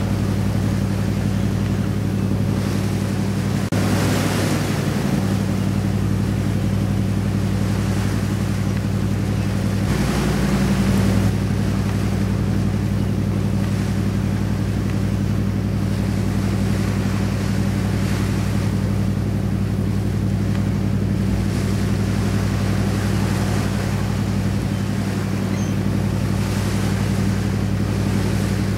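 A boat's engine droning steadily as the boat runs under way, with water and wind rushing past that swell up twice.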